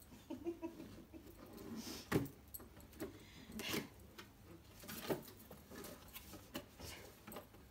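Wrapping paper and tissue paper crinkling and tearing as a present is unwrapped and its cardboard box opened, in irregular crackles with a few light knocks.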